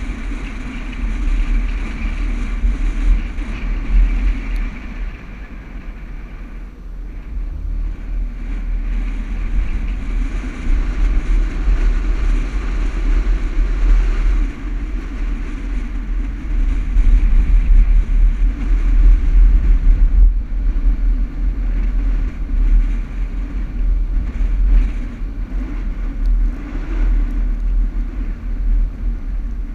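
A 4x4 driving over sand dunes: engine and tyre noise under a heavy, fluctuating low rumble of wind buffeting the microphone.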